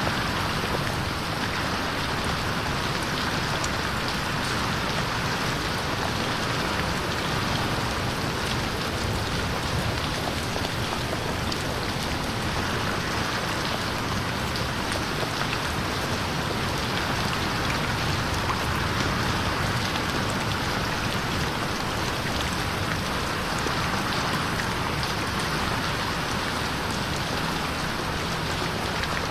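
Steady rain falling on a window, a dense, even patter of drops.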